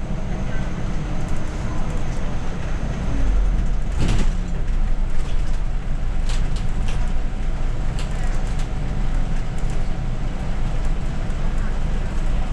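Scania OmniCity city bus heard from the driver's cab while driving: a steady low engine and road rumble, with light clicks and rattles from the cab and a single knock about four seconds in.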